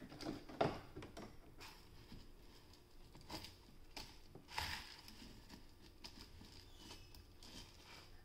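Faint plastic clicking and rattling of a toy hand-crank egg beater being turned in a plastic toy pot, with a few slightly louder knocks.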